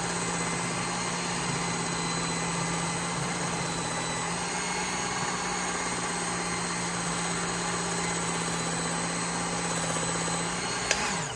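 Work Sharp Ken Onion belt grinder motor running steadily with a leather stropping belt fitted. Shortly before the end there is a click and the motor winds down.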